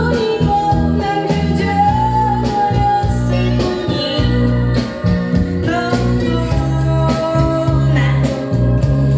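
A Korean blues song with a woman singing over guitar and bass, played from a record on a turntable through a 300B valve amplifier and loudspeakers and heard in the listening room.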